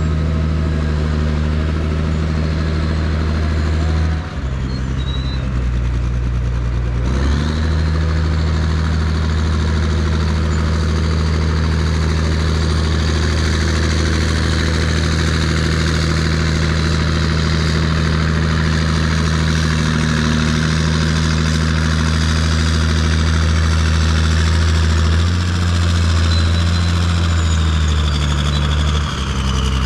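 Caterpillar 977K track loader's diesel engine running as the machine is driven toward a lowboy trailer for loading, its engine speed dropping about four seconds in and picking up again a few seconds later, then shifting again near the end.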